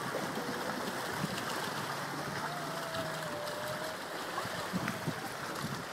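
Steady wash of sea surf on a rocky shore. A thin wavering tone runs through it from about half a second in to about four seconds.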